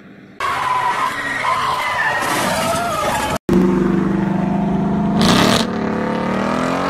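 Ford Mustang's engine revving hard as the car pulls away, its pitch climbing, with a short burst of hiss about two seconds after it starts. Before it comes a loud, noisy stretch with wavering high tones that cuts off abruptly.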